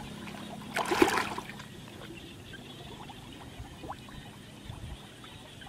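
Water splashing as a person wades waist-deep and gropes by hand in muddy shallow water: one louder splash about a second in, then softer trickling and small drips.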